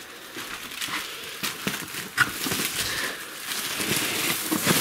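Rustling and handling noise with scattered clicks and knocks, from someone moving about with the camera. It grows louder in the second half, with a sharp knock about two seconds in and another near the end.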